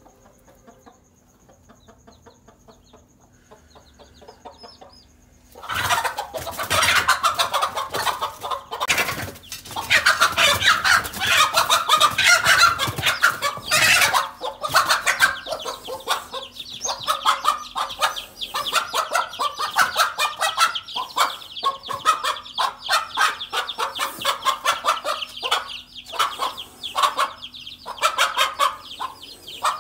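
Mother hen clucking and cackling loudly and rapidly in alarm as she confronts a snake threatening her chicks, starting suddenly about six seconds in after a faint opening. High peeping from the chicks runs through the later part.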